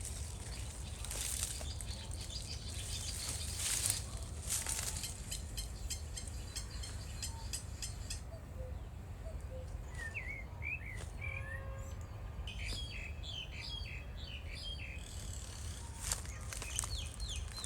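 Small birds chirping in short runs of quick rising and falling notes, mostly in the second half, over a steady low rumble. A few noisy hissing bursts come in the first few seconds.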